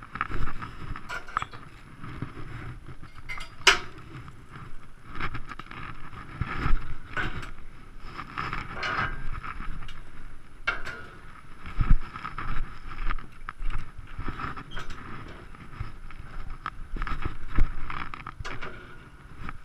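Aluminium chequer-plate loading ramps being slid out and set down on gravel: scraping and irregular metallic knocks, with a sharp clank about four seconds in, and footsteps on gravel.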